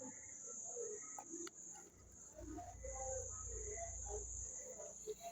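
Faint ambience: a steady high-pitched insect drone, like crickets, with scattered short bird calls lower down.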